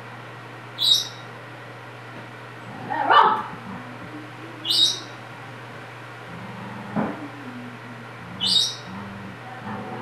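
A budgerigar gives three short, high chirps, about four seconds apart. A small dog lets out one loud rising yelp about three seconds in, then makes low, drawn-out sounds in the second half.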